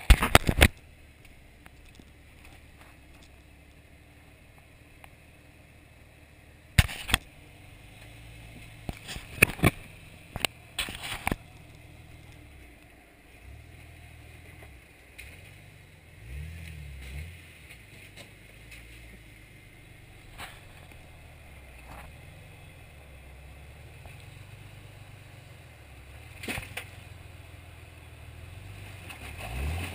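Jeep Wrangler TJ engine running at low crawling revs, with brief rises in revs about halfway through and near the end. Sharp knocks and clunks at the start, a cluster a few seconds later and a couple more further on, as the Jeep works over rocks.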